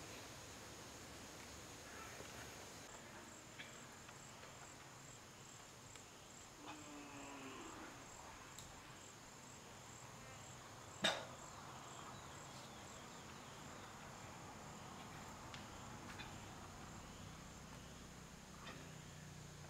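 Insects trilling steadily at a high pitch, with a pulsing chirp running through most of it. There are a few faint clicks and one sharp click about eleven seconds in.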